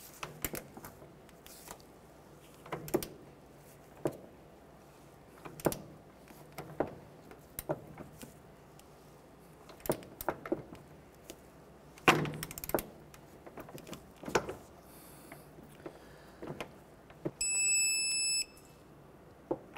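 A ratchet and socket clicking and knocking on the rear pivot-shaft nut of a Chevrolet S10 front upper control arm as it is run down and torqued. Near the end comes a steady electronic beep lasting about a second: a torque wrench signalling that the set torque of 85 foot-pounds has been reached.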